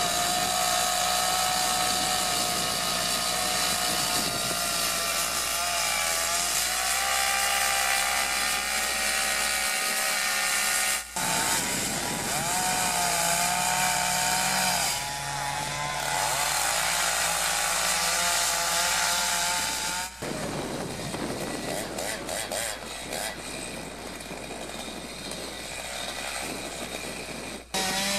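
Gasoline chainsaws cutting into large wooden logs, heard in three short clips one after another; the engine note wavers and dips as the chain bites into the wood.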